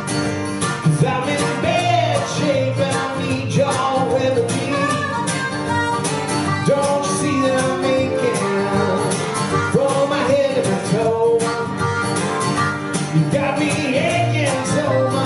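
Acoustic guitar strumming steady chords under a harmonica playing a wavering, bending melody: an instrumental break in a country song.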